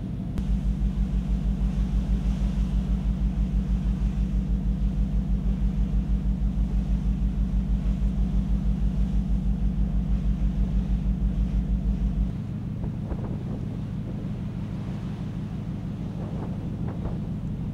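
Low, steady hum of a ship's engines and machinery, throbbing about five times a second. About twelve seconds in, the throbbing stops and a quieter steady low hum carries on.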